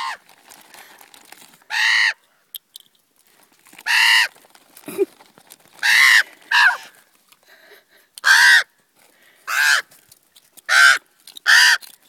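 Fledgling common ravens giving harsh, rasping begging calls, about eight or nine in a row a second or two apart and coming faster near the end, as they beg with wings spread and mouths open to be fed by an adult.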